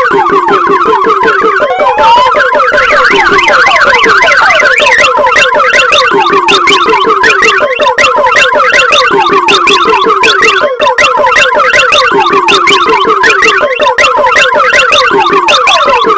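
Electronic multi-tone car alarm going off, cycling through its siren patterns: a fast warble alternating about every three seconds with a lower pulsing tone, and a rising whoop followed by rapid chirps a couple of seconds in.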